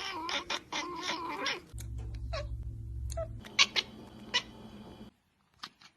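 A cat yowling in a long, wavering call for about the first second and a half, then, after an abrupt change of background, a couple of short cat calls and a few sharp clicks.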